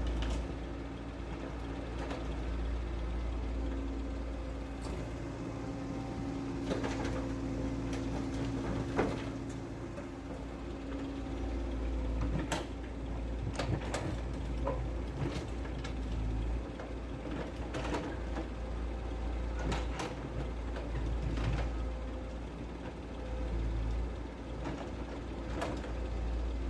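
An excavator and dump truck at work: a steady low machine hum with scattered sharp clacks and knocks.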